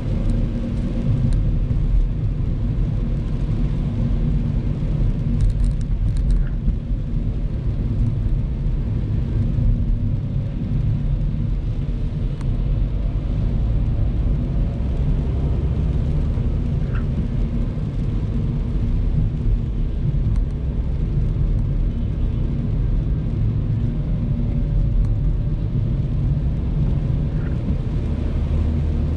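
Steady engine and road rumble inside a moving car's cabin, its tyres running on a rain-wet road.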